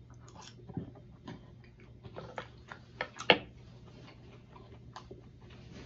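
A man chewing a mouthful of breaded, cheese-stuffed fried chicken breast close to the microphone: soft wet mouth clicks and smacks, with a sharper click about three seconds in.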